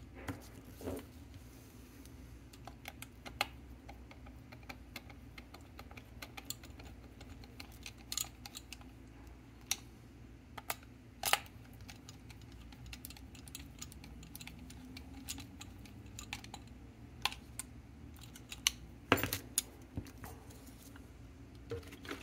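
Irregular small metal clicks and clinks from the steel bracket and parts of a pinball drop-target assembly being handled and fitted together, with a few louder knocks about eleven seconds in and near the end.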